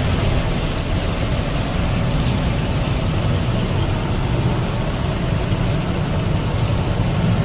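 Steady rumble of road traffic, with no single vehicle standing out.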